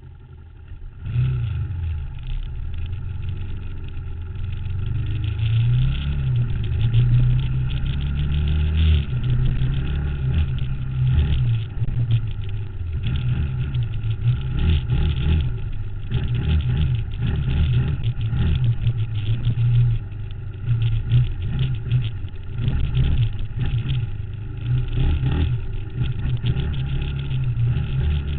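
ATV engine running and revving up and down during a ride, picked up close from the fender. It gets louder about a second in.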